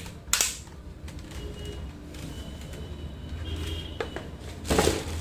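Sharp plastic clicks as a wired computer keyboard is handled and its fold-out tilt feet are snapped, with a brief louder rustle of handling near the end.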